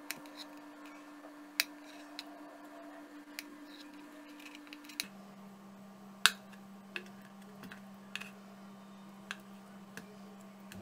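Kitchen knife slicing boiled taro root on a wooden chopping board: short, sharp knocks of the blade meeting the board, at irregular spacing of roughly one a second, the loudest about six seconds in.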